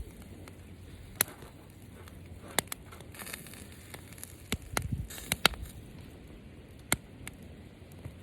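Wood fire crackling, with sharp pops at irregular intervals and a few low thumps about five seconds in.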